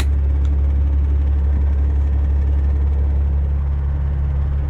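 Semi truck's diesel engine idling with a steady low rumble, and a sharp click right at the start.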